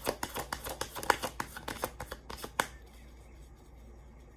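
Tarot cards being shuffled by hand, a rapid run of crisp card clicks that stops about two-thirds of the way in.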